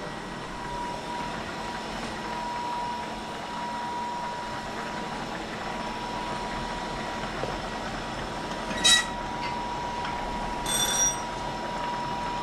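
Steady hiss of a pot of spaghetti boiling hard on a gas stove, with a thin steady whine under it. Metal cookware clinks and rings sharply about nine seconds in, and rings again more briefly about two seconds later.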